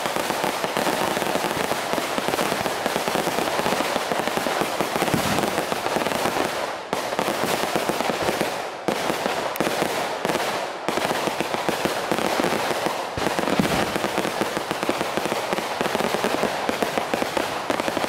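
A long string of firecrackers hung beneath a traditional Ponorogo hot-air balloon going off in a rapid, continuous crackle, with a few brief lulls.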